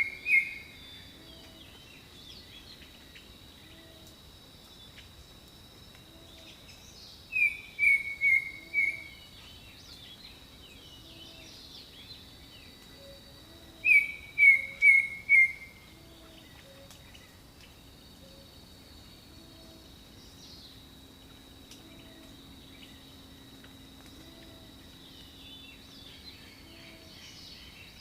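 Jungle birds singing: a bird gives phrases of three or four short falling whistled notes, three times, about every seven seconds, over a steady high insect drone.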